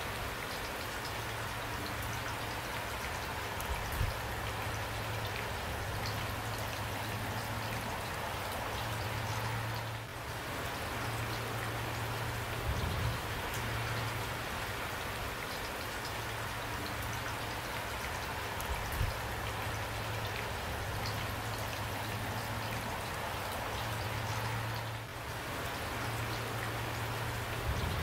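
Steady rain falling, an even hiss of drops with a few soft low thumps scattered through it.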